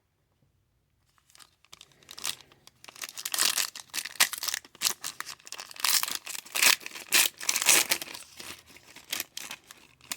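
A trading card pack's wrapper being torn open and crinkled by hand, an irregular crackling that starts about a second and a half in.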